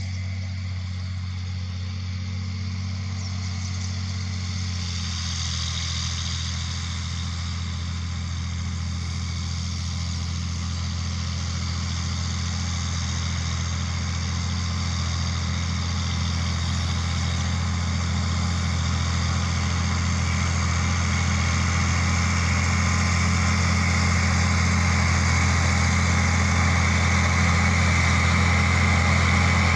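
John Deere 4620 tractor's six-cylinder diesel engine running steadily under load as it pulls a soil finisher, growing gradually louder as the tractor approaches.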